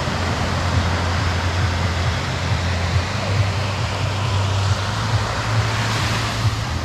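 Steady roar of surf washing on a beach, with a constant low rumble underneath.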